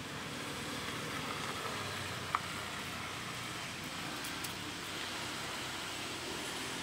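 Steady hiss of outdoor background noise, with one sharp click a little over two seconds in.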